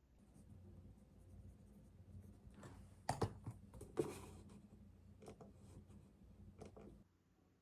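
Light clicks and taps of small objects being handled, with two sharper knocks about three and four seconds in, over a low hum that cuts off near the end.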